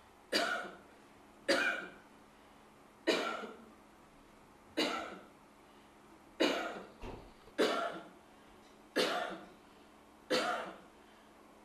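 A person coughing: eight single coughs, each sharp and short, about every one and a half seconds.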